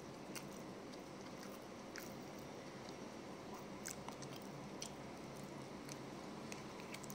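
A person chewing a mouthful of soft fried rice-flour cake with egg, with faint, scattered wet mouth clicks and smacks.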